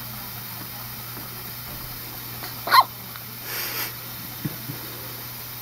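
A premature newborn's hiccup: one short, sharp squeak about halfway through, followed a moment later by a brief breathy sound, over a steady low hum.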